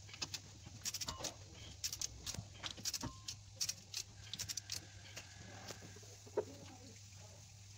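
Ratchet wrench clicking in quick irregular runs on the rear differential cover bolts, busiest in the first half, with one sharper click later, over a low steady hum.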